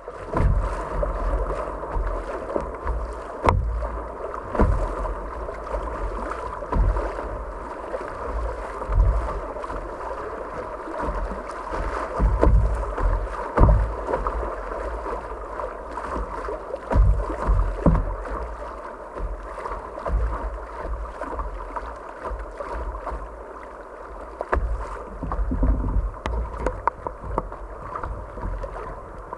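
Kayak paddling on a river: paddle strokes and water swishing against the hull, with a few sharp knocks and irregular low rumbles of wind buffeting the microphone.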